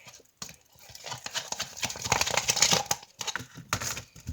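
Homemade slime being mixed and worked after more contact-lens solution is added: a dense run of short sticky clicks and pops, thickest from about one to three seconds in, with another short burst near the end.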